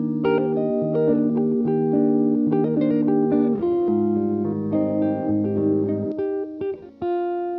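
Background music led by guitar, with plucked notes and chords over a sustained bass, ending on a held chord.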